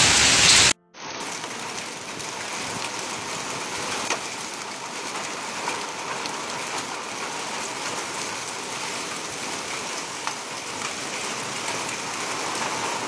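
Hail and heavy rain falling on a corrugated roof: a dense, steady patter with an occasional sharper tick of a hailstone striking. It cuts out briefly about a second in.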